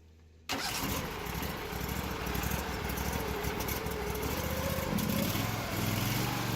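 Engine-driven pressure washer running, a steady mechanical drone with spray noise that cuts in suddenly about half a second in.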